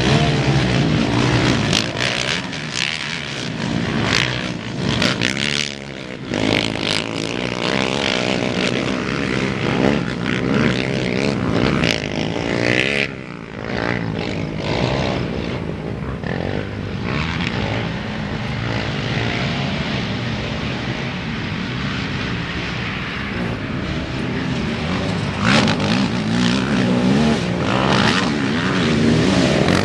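Several four-stroke single-cylinder 450 and 400 class racing quads running hard around a motocross track. Their engine pitch rises and falls again and again as the riders accelerate, shift and back off.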